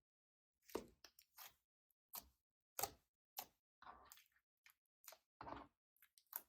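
Slime with makeup mixed in being pressed, stretched and folded by hand: a quiet, irregular string of short sticky clicks and squishes, about two a second.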